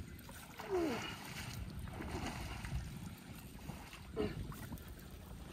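Shallow marsh water sloshing around a wading angler as he works and sets into a fish, with wind rumbling on the microphone. Two short calls whose pitch falls cut through, one about a second in and one near four seconds.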